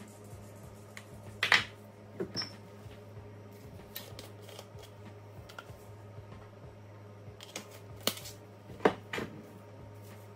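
Scattered light clicks and knocks of objects being handled, a few louder ones about a second and a half in and again around eight and nine seconds, over a steady low hum.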